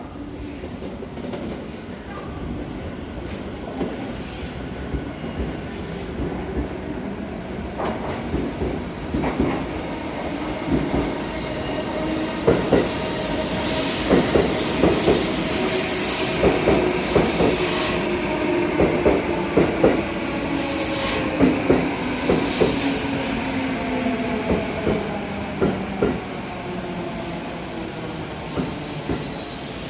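Tokyo Metro Tozai Line local train pulling into the platform and braking. The wheels knock over the rail joints, a set of motor tones falls slowly in pitch as it slows, and high wheel squeals come and go through the middle stretch.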